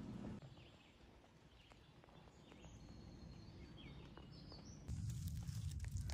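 Near silence for about two seconds, then faint outdoor ambience with a few faint bird chirps. About five seconds in, a louder low steady rumble starts.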